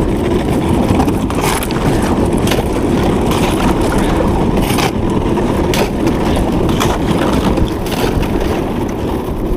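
Thin skim ice crunching and cracking against a kayak's hull as it pushes through, with irregular sharp cracks over continuous crunching.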